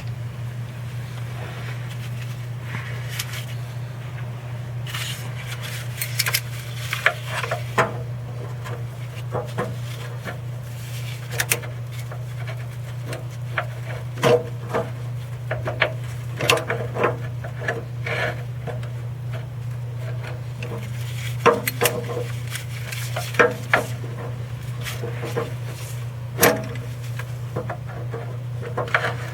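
Irregular metal clicks and scraping as the dipstick tube adapter's fitting nut is worked by hand and with tools, starting about five seconds in, over a steady low hum.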